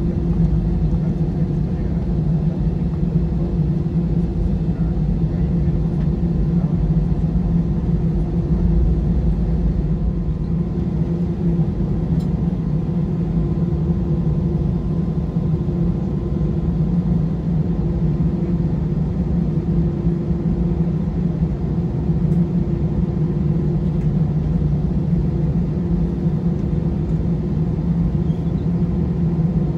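Airbus A320 cabin noise while taxiing after landing: the jet engines at idle make a steady low drone with a constant hum, heard inside the cabin beside the wing.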